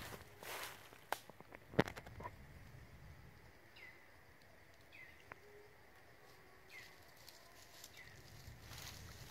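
Outdoor woodland background with two or three sharp snaps or clicks in the first two seconds, then a bird giving four short, high, falling chirps a second or so apart.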